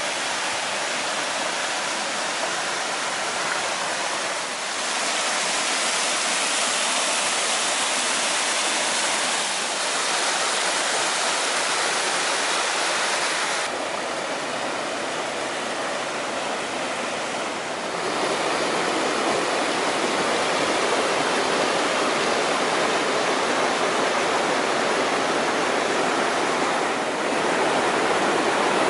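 Fast-flowing mountain water rushing and splashing over stones in a stream and an irrigation channel: a steady, loud rushing whose tone shifts abruptly several times.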